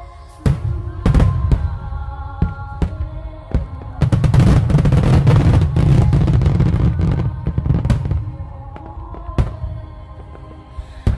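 Fireworks display: aerial shells bursting with sharp bangs, spaced apart at first, then a dense rapid barrage of bursts from about four seconds in to about seven and a half seconds, with music playing underneath.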